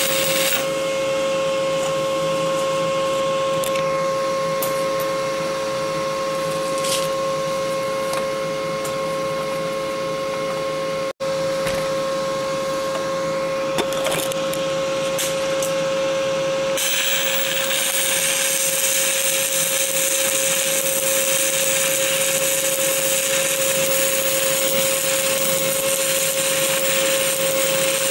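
Stick-welding arc from 7018 rods on an open root pass. Its crackling hiss stops just after the start, leaving a steady hum with a few faint ticks, then the arc strikes again a little past halfway and crackles steadily on. A brief dropout to silence falls near the middle.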